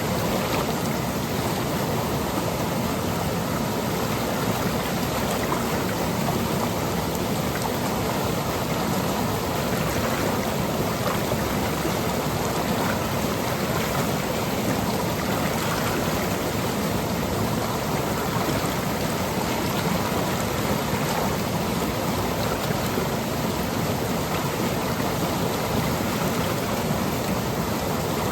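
A seasonal monsoon stream running over rocks and pebbles, a steady, unbroken rush of water.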